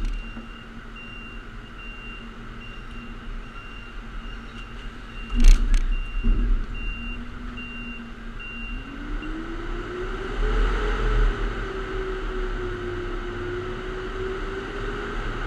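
Garbage truck's engine running at a low steady speed, then revving up about nine seconds in and holding a higher speed while it dumps its load of recycling. A loud clunk comes about five and a half seconds in, with a smaller knock just after, and a backup alarm beeps about twice a second through the first half.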